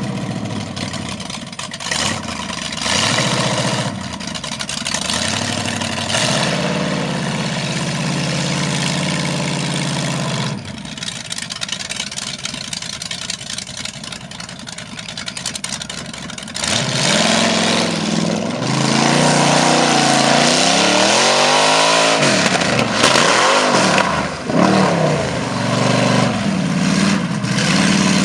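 An engine running, steady at first, then repeatedly revving up and down through the second half.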